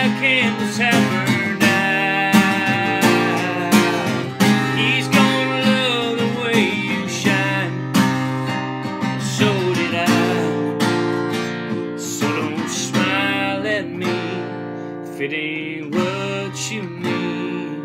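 Acoustic guitar with a capo, strummed in a steady rhythm through an instrumental break in a country ballad. It grows softer near the end.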